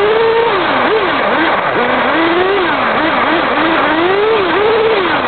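Kyosho RC car's motor heard from an onboard camera, its pitch rising and falling again and again as the car speeds up and slows, over a steady rush of tyre and road noise.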